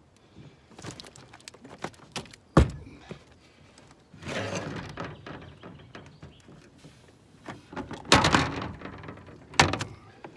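A series of sharp knocks and thunks against the boat while a large pike is handled and lowered over the side, with two longer noisy rushes about four and eight seconds in.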